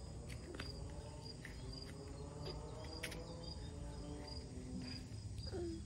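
Crickets chirping in a high, even pulse that repeats a few times a second. There are a few soft knocks, and a toddler makes a short falling vocal sound near the end.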